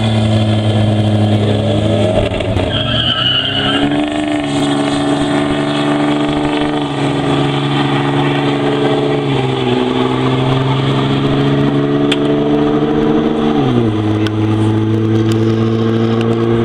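Drag-racing engines of a Mitsubishi Lancer Evolution III and a turbo-diesel pickup running hard. The pitch climbs about two seconds in as they launch, with a brief high squeal near three seconds, then drops in steps three times as they pull down the strip.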